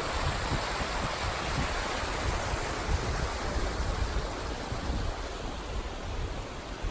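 Small waterfall and mountain stream rushing: a steady, even roar of falling and running water.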